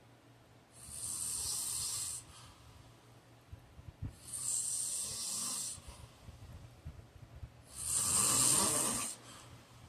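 A sleeping man snoring: three noisy breaths about three and a half seconds apart, the last one the loudest.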